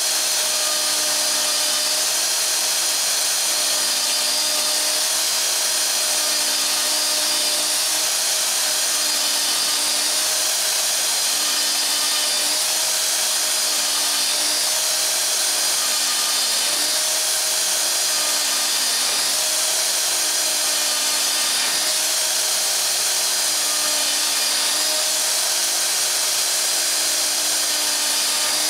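Festool OF 2200 plunge router running steadily, its spinning bit wasting out a mortise in hardwood.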